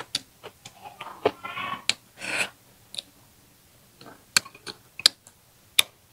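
Close-up eating sounds: wooden chopsticks clicking against a glass rice bowl, and mouth noises of chewing and lip smacks, as a series of sharp separate clicks. A brief soft murmur and a short breathy puff come about two seconds in.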